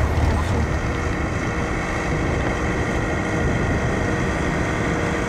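Piston engines of WWII Curtiss fighters (P-40 Warhawks and P-36 Hawks) running with a steady drone, with wind rumbling on the microphone.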